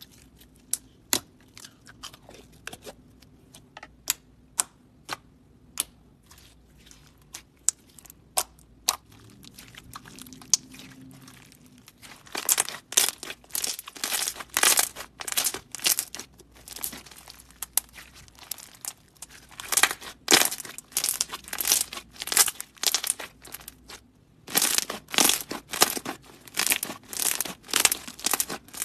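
Pink slime mixed with foam beads being poked, stretched and squished by hand. It gives spaced sharp pops at first, then from about halfway dense crackling and crunching, with a brief pause near the end.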